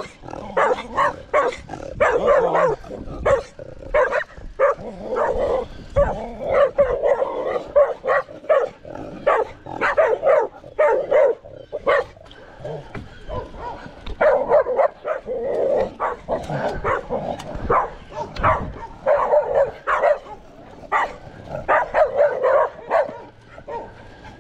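Dogs barking over and over in quick volleys, loose dogs chasing a passing bicycle.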